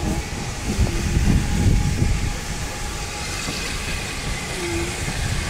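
Steam train running on the line: a steady low rumble that eases a little partway through.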